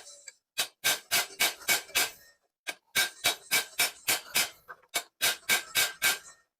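Rapid metal-on-metal taps as a metal tool punches a ceiling fan's steel axle, in three runs of about six strikes each with brief pauses, every tap ringing slightly. The punching raises the surface of the too-thin, loose axle so the new stator will sit tight on it.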